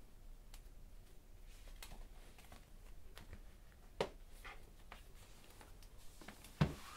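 Quiet room with faint rustles and small handling clicks as a tablet in a case is moved and set down on a wooden side table, with a sharper click about four seconds in and a soft thump near the end.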